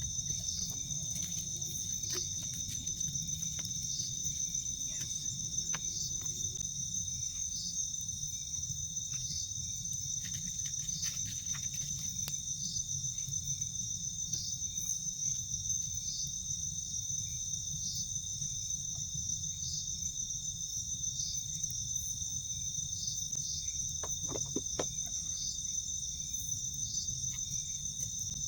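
Forest insects, crickets among them, chirring in a steady high-pitched drone, with a pulsing call repeating about once a second. A low rumbling haze sits underneath, and a few faint clicks come near the end.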